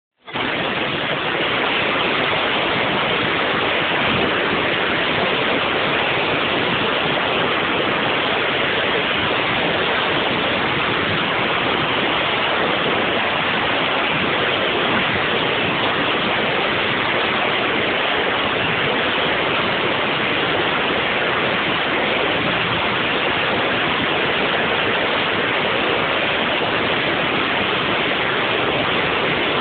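A steady, even rushing hiss with no distinct events, cutting off suddenly at the end.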